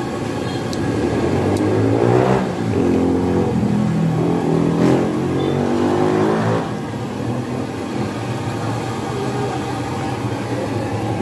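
Street traffic: a motor vehicle's engine revs up and passes close by from about two seconds in, rising and falling in pitch for about five seconds, over a steady traffic hum.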